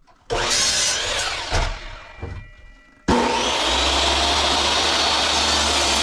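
Power saw cutting wood. A loud burst starts just after the beginning and winds down in pitch over a couple of seconds; about three seconds in, the saw starts abruptly and runs steadily.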